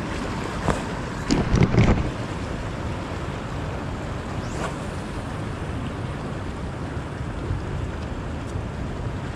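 Steady wind rushing over the microphone with waves washing on the rocky shore. In the first two seconds, a few knocks and thumps from the camera being handled and set down on a rock.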